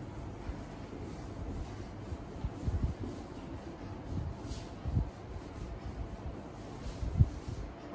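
Handheld whiteboard eraser rubbing across a whiteboard, wiping off marker writing. A few soft knocks come through, the sharpest near the end.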